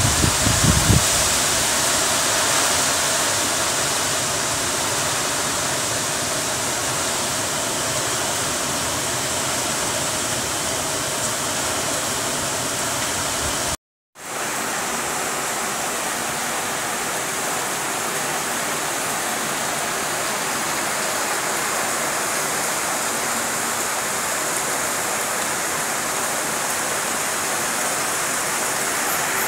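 Heavy monsoon rain pouring steadily onto banana leaves and vegetation: a loud, even hiss. Gusts buffet the microphone in the first second, and the sound cuts out for a moment about halfway before the downpour resumes.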